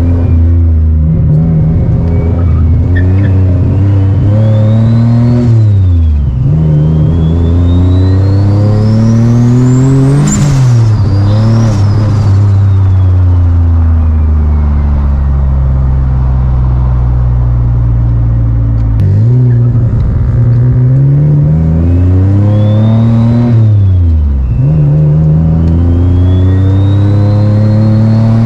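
Single-turbo Nissan VQ V6 heard from inside the car, pulling through the gears: the engine note climbs and drops sharply at each shift, and a long wind-down mid-way is followed by two more pulls. A thin high turbo whistle rises and falls with the revs.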